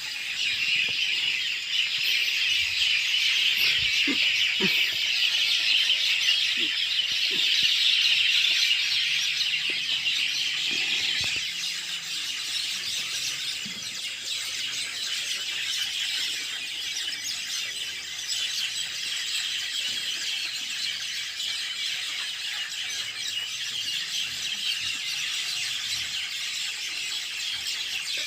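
A steady, shrill insect chorus, a dense high-pitched buzzing drone that holds without a break. It is somewhat louder in the first ten seconds or so, then settles a little softer.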